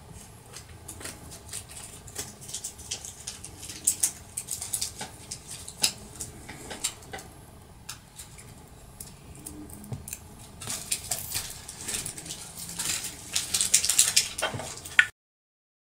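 Close-up handling of a small plastic toy lipstick: light clicks, taps and rubbing as it is turned in the fingers and its clear plastic cap is fitted on, growing busier over the last few seconds.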